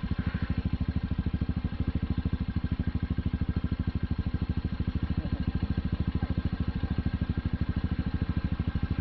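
Small motor scooter's engine idling with a steady, even putter.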